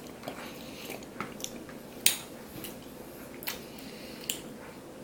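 A person chewing a mouthful of soft dragon fruit flesh, with several small wet mouth clicks; the sharpest comes about two seconds in.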